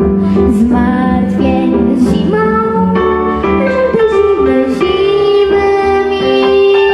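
A young girl singing a song into a microphone over backing music, moving from note to note and then holding one long note through the second half.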